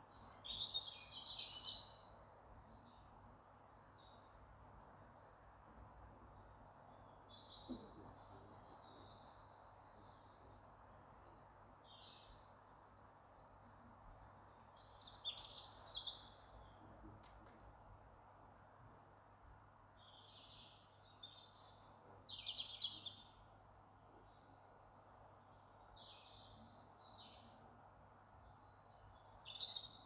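Wild songbirds singing in short, high, bright phrases that come every six or seven seconds, with fainter calls between them, over a steady faint background hiss.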